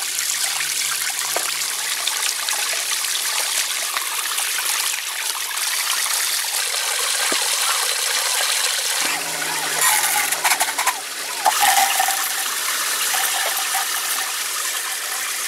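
Running water, a steady trickling flow, with a few sharper, louder sounds about ten to twelve seconds in.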